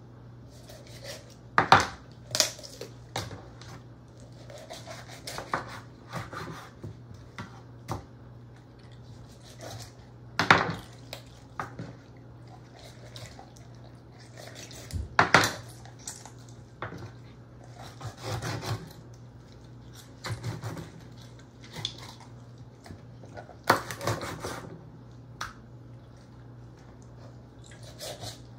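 Chef's knife cutting up a raw whole chicken on a wooden cutting board: irregular sharp knocks of the blade hitting the board as it goes through the joints, the loudest about 2, 10, 15 and 24 seconds in. A low steady hum lies underneath.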